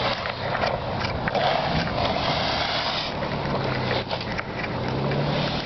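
A vehicle engine hums steadily under a loud rough rushing noise with scattered clicks and knocks; the hum rises slightly in pitch near the end.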